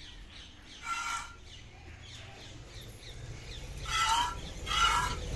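Chickens squawking: three short, harsh calls, one about a second in and two near the end.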